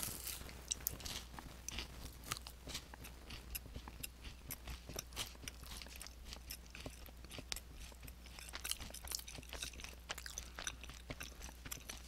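A person biting into and chewing a firm Nature Valley Sweet and Salty peanut butter granola bar, close to a headset microphone. Many small crunches come irregularly throughout the chewing.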